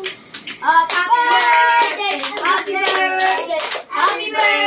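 Children singing together and clapping hands along in a steady rhythm.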